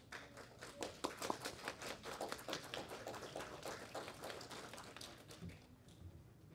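A small audience clapping, dying away about five and a half seconds in, with a couple of soft low thumps near the end.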